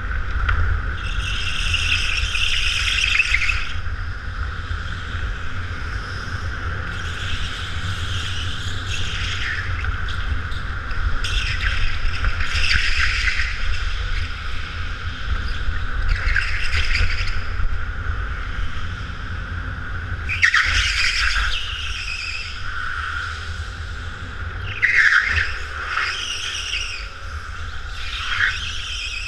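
Go-kart running flat out with a steady high whine, its tyres squealing through the corners about every three to four seconds, seven times in all.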